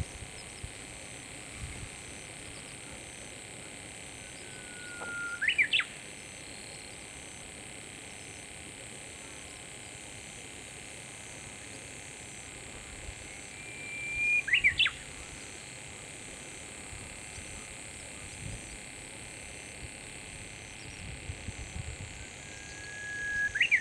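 Japanese bush warbler singing its 'hoo-hokekyo' song three times, about nine seconds apart. Each song is a long held whistle that breaks into a quick rising flourish, the last one right at the end.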